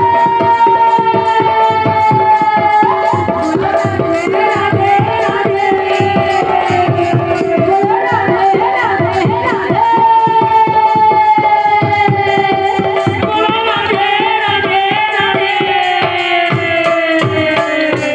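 Live folk dance music: fast, dense drumming on a barrel drum under a long held melody line that slowly falls in pitch and starts again about halfway through, over a steady drone.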